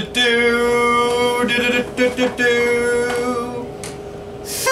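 A short sung theme jingle: a voice holding long, steady notes, quieter in the last second, with a new held note coming in at the very end.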